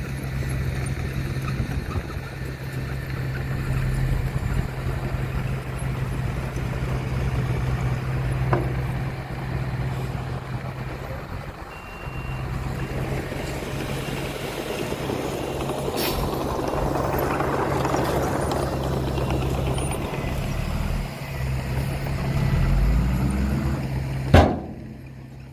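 Heavy diesel construction machinery running steadily with a low engine hum and mechanical noise. The engine note rises near the end, followed by a single sharp knock.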